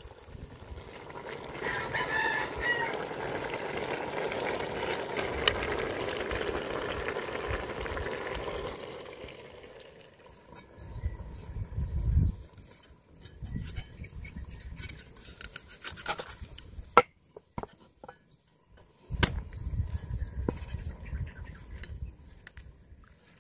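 Thick coconut milk pouring into a steaming cooking pot, a steady rushing that fades out about nine seconds in, with a rooster crowing briefly near the start. Then a steel cleaver knocking on a wooden cutting board as it chops dried fish, in sharp separate strokes with quiet between.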